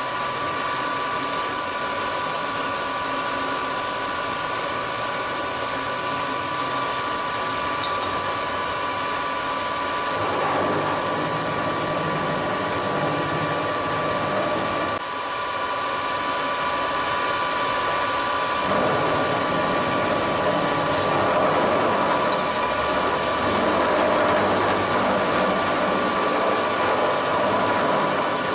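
Hafco HM-54GV milling machine running with a steady high whine while an end mill trims the edge of an aluminium block as the table is fed across. The cutting noise swells about ten seconds in and again from about nineteen seconds on.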